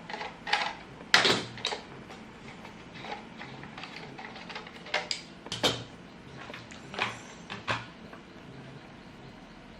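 Scattered clicks and knocks from hands handling a KASDA KW9621S 4G SIM router while its flat rear 4G antennas are taken off, with the sharpest knocks about a second in and several more between about five and eight seconds in.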